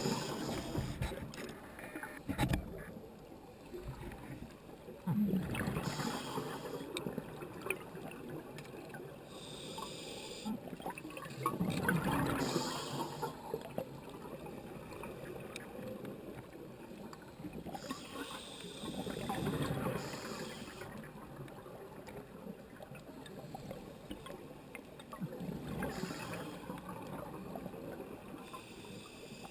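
Scuba regulator breathing heard underwater: a hiss on each inhale and a gurgle of exhaled bubbles, in slow swells about every six or seven seconds. A sharp click about two and a half seconds in.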